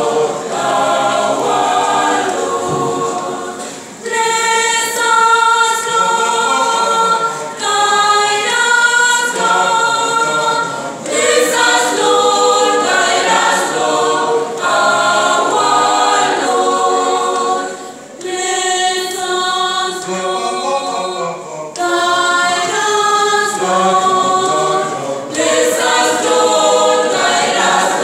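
School choir singing a sacred song a cappella in several voice parts, with brief breaths between phrases about four seconds in and again just past halfway.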